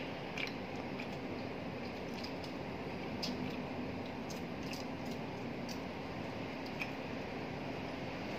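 Spoon and fork clinking and scraping lightly against a plate during a meal, a scatter of short clicks over a steady background hiss and hum.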